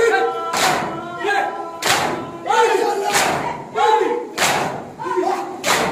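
Crowd of men chanting a noha in unison and beating their chests (matam) together, one loud collective strike about every 1.3 seconds, five in all.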